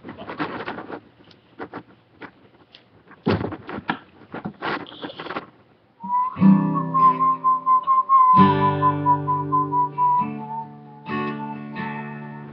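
Scattered knocks and handling clicks, then about six seconds in a guitar starts playing chords while a person whistles a melody over it.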